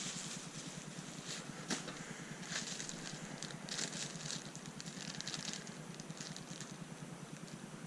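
Hands rummaging through a box of parts while searching for screws: light rustling with scattered small clicks and taps.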